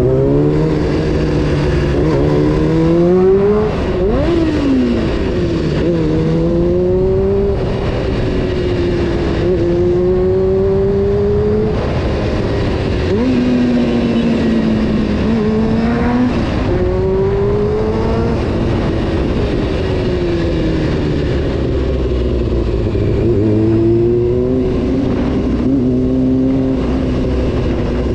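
Honda CBR600 F4's inline-four engine on the move, revving up and then dropping in pitch, over and over as the rider works the throttle and gears. The pitch climbs for a few seconds at a time and falls sharply about four seconds in and again around twelve and sixteen seconds in.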